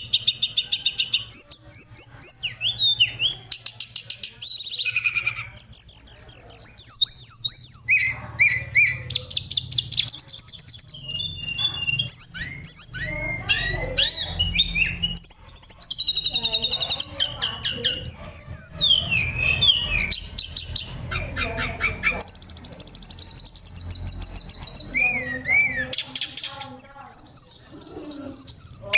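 Oriental magpie-robin (kacer) singing a long, varied song of clear whistles, trills and quick runs of repeated notes, phrase after phrase without pause. A faint low hum sits underneath.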